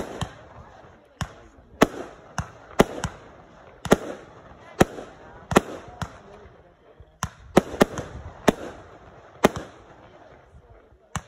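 Fireworks going off: an irregular run of sharp bangs, roughly one to two a second, as shots launch from the ground and burst overhead.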